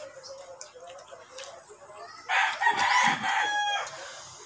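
A rooster crows once, starting about two seconds in. The crow lasts about a second and a half, rough at first and ending on a held note.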